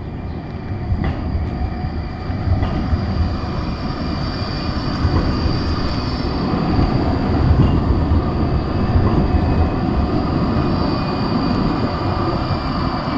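NGT DXDD low-floor articulated tram driving past close by: rumbling rolling noise on the rails with a steady high-pitched whine, getting louder over the first several seconds as it comes alongside.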